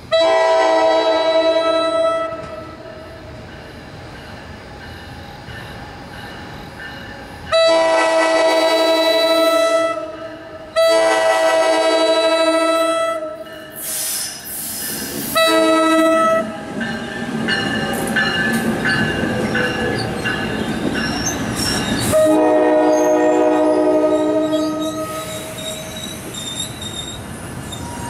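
Electric passenger locomotive's multi-chime air horn sounding five blasts as the train approaches: three long ones, then a short one, then a final long one. Between the last two blasts, high wheel-flange squeal rises from the steel wheels on the curving track, and the train's rolling rumble continues as the coaches pass.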